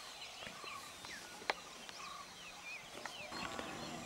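Faint birdsong: many short whistled chirps from several birds, with a couple of brief buzzy trills and a few soft clicks.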